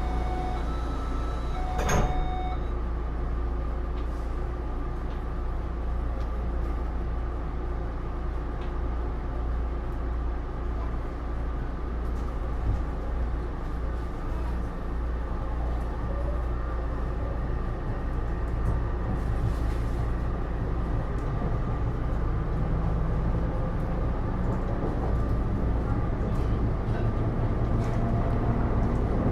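Inside a Taipei Metro C301 car with its Bombardier IGBT-VVVF traction system: a door chime's stepped tones end with a knock about two seconds in as the sliding doors shut. A steady low hum follows. In the second half a low inverter/motor tone slowly rises in pitch and the sound builds as the train starts to move.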